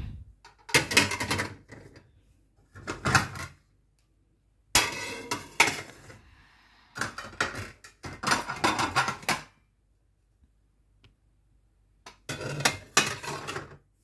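Dinner plates clattering and clinking as they are stacked onto a cabinet shelf. The clatter comes in about six separate bursts, with a pause of a few seconds before the last one.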